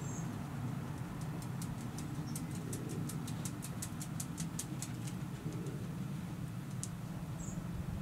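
Quick light ticks, about four a second for a few seconds, then one more, like a small dog's claws on concrete paving slabs as a miniature schnauzer trots up the path. Under them is a steady low background rumble, with two brief high chirps.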